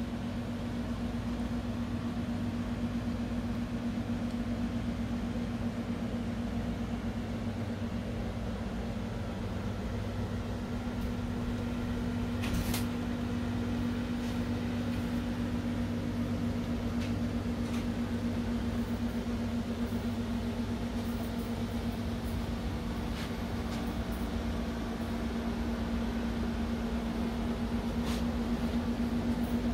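Steady machine hum with one constant low tone over a even background noise, like a running fan or room appliance, with a couple of faint clicks.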